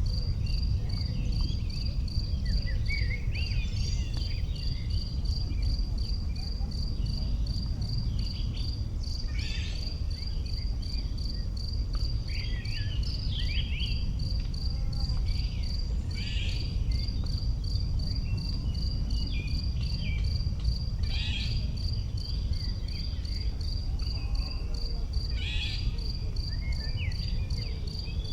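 An insect, cricket-like, chirping in a steady high-pitched pulse of about four to five chirps a second, with short higher calls from other animals dropping in now and then over a steady low rumble.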